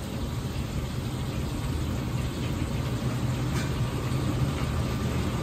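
Steady low roar of a gas wok range burner at full flame, with a faint crackle of minced ginger frying in oil in the carbon-steel wok.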